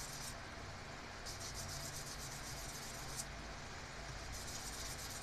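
A thin metal horn-button contact being rubbed back and forth on fine sandpaper, a scratchy hiss of quick strokes. It comes in spells with short pauses between: briefly at the start, then about a second in for two seconds, then again near the end. The contact is being cleaned to bring back the horn connection.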